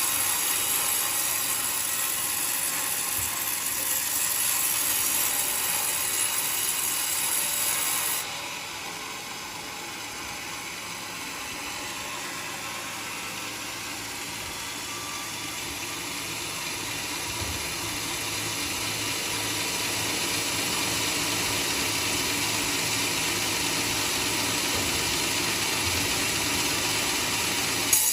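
Portable sawmill cutting through coconut wood: a steady, noisy run of blade and motor. It drops suddenly about eight seconds in, then slowly grows louder again.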